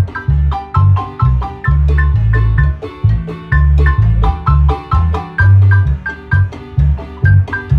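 Guatemalan marimba music: quick mallet-struck melody notes in a steady rhythm over a heavy, sustained bass line.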